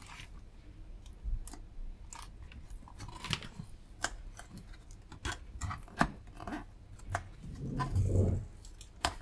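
Plastic docking-station cover being handled and pried at by hand: scattered small clicks, taps and scratches of plastic, with a brief louder low sound about eight seconds in.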